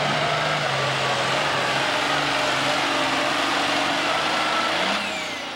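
Super stock pulling tractor's turbocharged diesel engine running flat out under full load while it drags the weight-transfer sled. About five seconds in the throttle comes off, the sound drops away and a whine falls in pitch as the engine winds down at the end of the pull.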